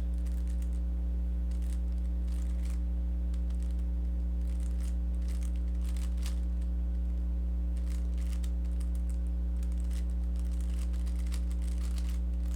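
Rubik's cube being turned through an algorithm: quick runs of small plastic clicks and clacks in irregular clusters, over a steady low electrical hum.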